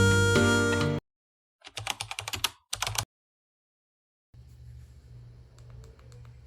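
Guitar music playing through a small JBL Bluetooth speaker cuts off abruptly about a second in. Then comes a quick run of sharp clicks, like typing, lasting about a second and a half, and later a faint low hum.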